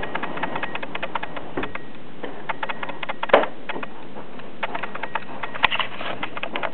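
A dog crunching a dog biscuit: irregular sharp crunches and clicks, the loudest about three and a half seconds in and again near six seconds, over a steady hiss.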